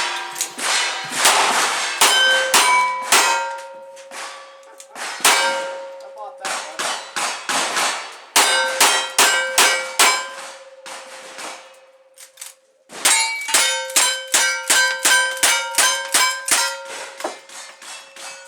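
Rapid gunfire at steel targets, each hit followed by the plate ringing. A short pause about twelve seconds in, then another quick string of shots and ringing steel.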